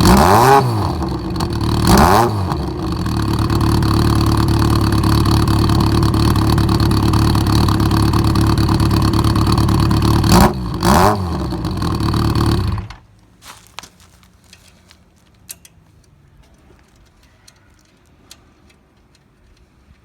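Yamaha XJR1200's air-cooled inline-four running through a short Zess pipe fitted with a slim silencer insert, idling with several quick throttle blips, then switched off about 13 seconds in. Faint light ticks follow.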